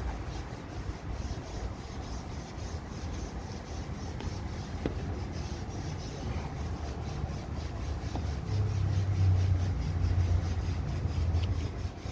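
Rubbing and scraping handling noise as hose clamps are worked onto a rubber breather hose, with a few light ticks, over a low rumble that grows louder about eight seconds in.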